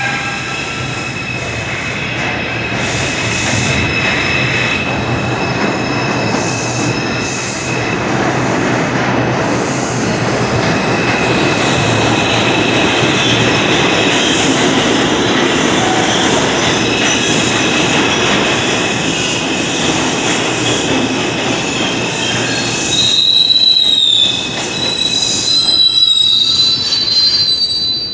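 New York City subway train pulling into an underground station: a steady loud roar of wheels on rail with a held high tone, then high squealing wheel tones near the end as it brakes to a stop.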